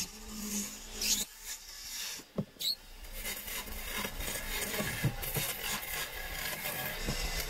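A low hum that stops about a second in, then after a short pause and a single click, continuous rough scraping of a hand tool against wood.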